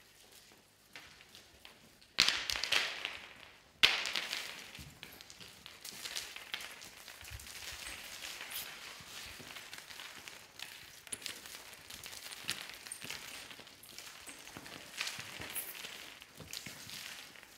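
A scatter of small, light wrapped pieces swept and pushed across a smooth studio floor by hand, making a dense crackling, pattering clatter. Two sudden loud sweeps come about two and four seconds in, and a continuous crackle follows.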